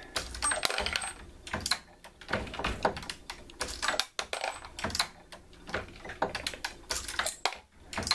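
RCBS Green Machine progressive reloading press being cycled by hand: a run of irregular metallic clicks and clacks from the press's linkage, ram and case plate.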